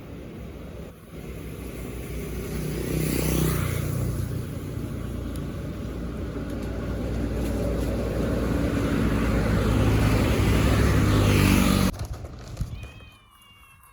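A motor vehicle running close by, its engine and road noise swelling twice and then cutting off abruptly near the end.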